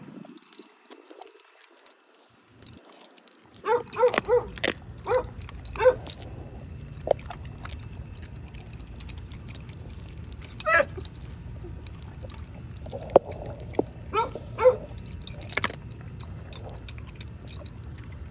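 Pit bull-type dog chewing and crunching on a raw whole chicken, with clinks from the heavy chain lying across the meat. The sharp crunches and clicks start about four seconds in and come in irregular clusters over a low rumble.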